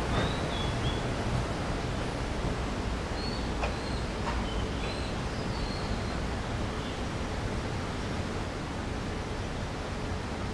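Steady outdoor background noise that eases slightly, with a few faint, short bird chirps around the middle.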